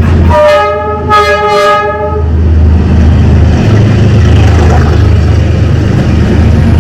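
Train horn sounding one blast of about two seconds over the steady low rumble of the train running past.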